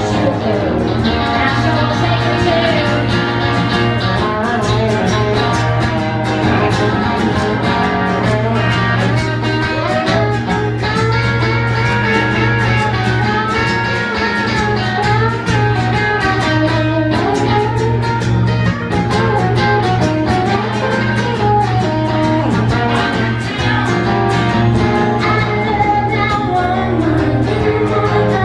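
Live blues song: a woman singing over strummed acoustic guitar, with a second guitar playing alongside.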